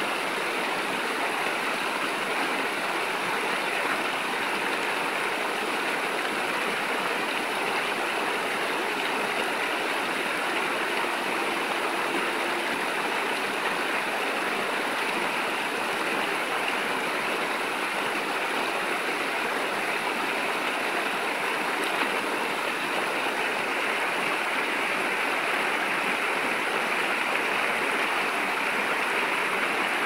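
Shallow stream rushing steadily over rocks and spilling down small cascades, an even, unbroken sound of flowing water.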